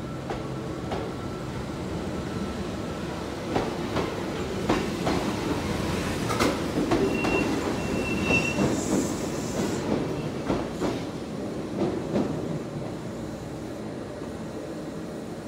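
Kintetsu 16000 series electric train running past, its wheels knocking irregularly over rail joints with a steady rumble underneath. About halfway through there is a short high-pitched wheel squeal.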